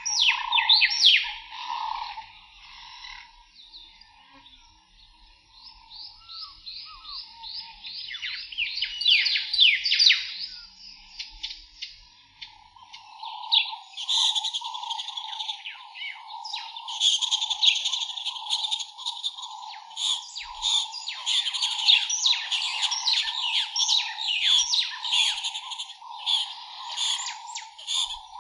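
Birds chirping and twittering in fast runs of quick calls, with a steady buzzing tone underneath. The chirping thins out for a few seconds in the first half, then turns dense and busy.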